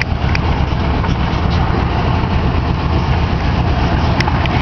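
Engine of an open-sided trackless park train running steadily as it drives along, a low rumble with a couple of light clicks.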